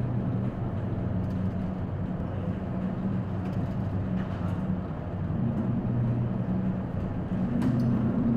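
Steady low hum of a cargo ship's engine and machinery heard aboard, over an even rushing noise of wind and sea. The hum grows a little louder and slightly higher near the end.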